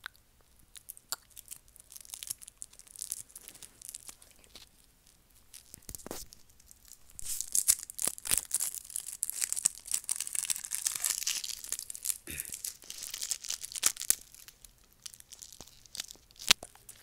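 Plastic candy wrapper crinkling and tearing as it is unwrapped by hand close to an earphone microphone. Scattered crackles build to a dense run of crinkling in the middle, then thin out again.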